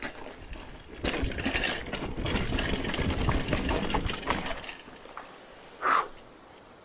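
Hardtail mountain bike clattering over rough trail: a dense run of rapid rattles and knocks over a low rumble, easing off after about four seconds. A short, sharp sound follows about six seconds in.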